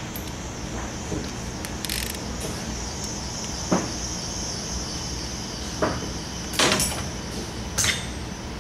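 A few light metallic clicks and knocks as a bolt is hand-threaded into the slide piston of a Hanbell screw compressor and tools are handled. The two strongest knocks come near the end, over a steady workshop background noise.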